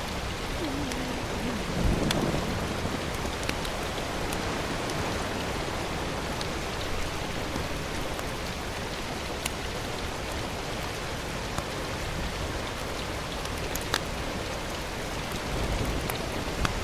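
A steady, even hiss of outdoor noise with a few sharp ticks. A low rumble swells briefly about two seconds in and again near the end.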